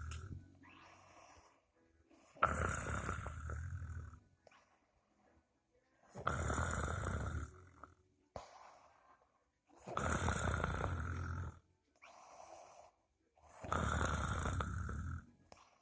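A sleeping person snoring: four loud, rasping snores about four seconds apart, each lasting under two seconds, with quieter breaths between them.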